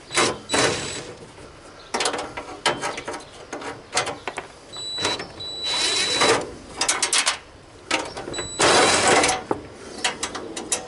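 Parts being worked off a Craftsman garden tractor's hood: irregular bursts of rattling, scraping and clicking, each lasting about half a second to a second.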